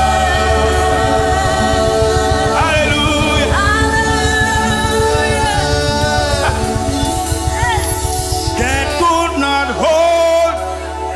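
Gospel worship music: voices holding long, drawn-out notes with vibrato over instrumental backing, with a few sliding vocal runs near the end.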